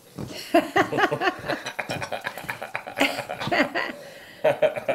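White-faced capuchin monkeys calling excitedly in quick runs of short squeaky chirps as they scramble about, mixed with a woman's laughter.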